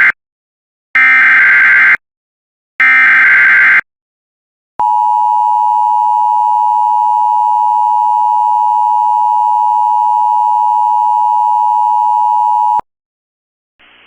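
Emergency Alert System SAME header: two short bursts of shrill, rapidly warbling digital data tones, about a second each, then the EAS two-tone attention signal, a steady harsh dual tone held for about eight seconds. The sequence signals the start of a tornado warning.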